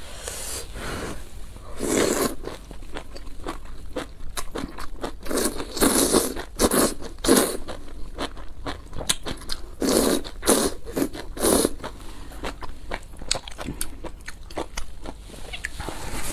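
A person slurping noodles out of a spicy broth in several long, wet pulls, with chewing and small mouth clicks in between, close to the microphone.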